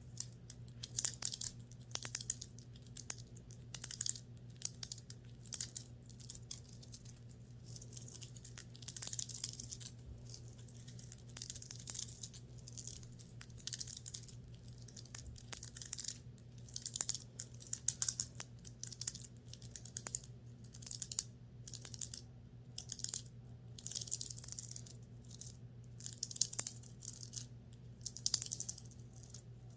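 Fingernails scratching and rubbing the fabric of a clothing top close to the microphone, in quick, irregular strokes, over a steady low hum.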